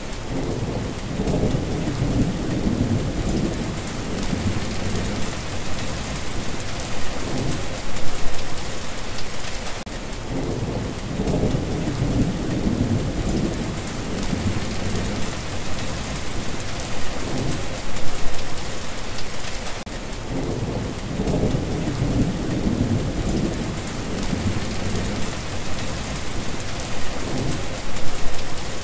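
Steady rain with thunder rumbling low and rolling over and over, swelling to a louder clap about every ten seconds.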